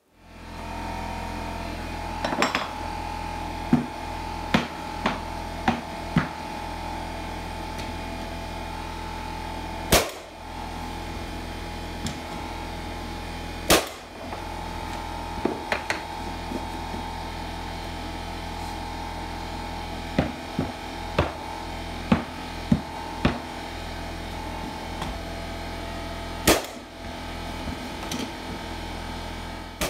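Mallet strikes on a pneumatic flooring stapler driving staples into red oak floor planks: about fifteen sharp knocks at uneven intervals, three of them louder bangs. A steady hum runs underneath.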